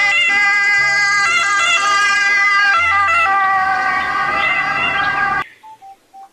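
Ambulance siren sounding, its tones stepping back and forth between pitches, then cutting off abruptly about five seconds in.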